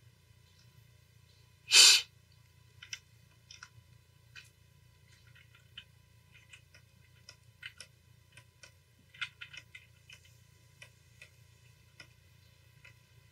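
Scattered light clicks of someone working at a computer, over a steady low hum. About two seconds in, a single short, loud burst of noise stands out as the loudest sound.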